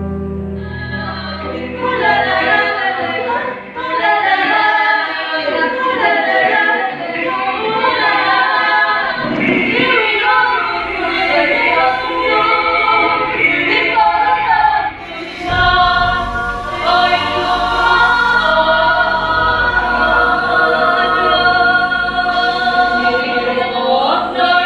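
A group of voices chanting together. The voices are unaccompanied at first; a deep, steady low drone comes in a little past halfway and holds under the voices.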